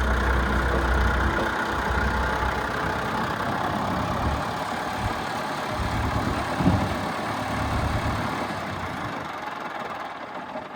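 Tractor engine running steadily, with one knock about two-thirds of the way in, dying away near the end.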